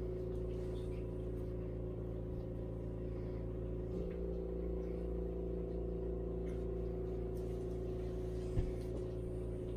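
Steady machine hum with several held tones, from a running motor or compressor, shifting slightly about four seconds in, with one faint click near the end.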